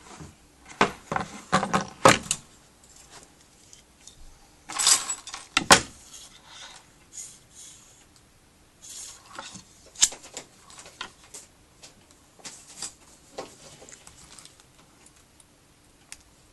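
Metal cabinet hinges being handled and fitted: irregular clinks, rattles and knocks of small hardware, with a louder rustling clatter about five seconds in.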